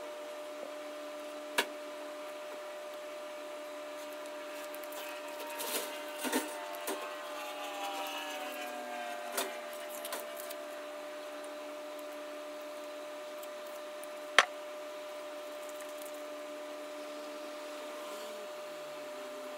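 A cloth rubbing and squeaking on a wooden hickory hammer handle for a few seconds about a third of the way in, over a steady hum. Two sharp knocks stand out, one near the start and a louder one about three-quarters through.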